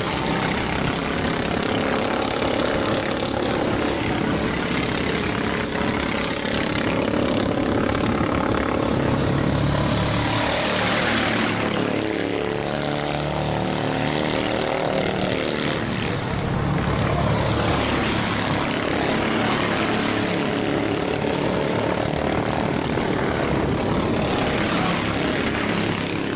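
Several racing karts' small engines buzzing steadily as they lap the track. The pitch rises and falls as the karts accelerate out of corners and back off.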